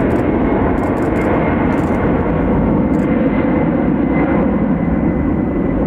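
Heavy wide-body freighter jet's engines running loud and steady, a dense roar with a thin high whine over it.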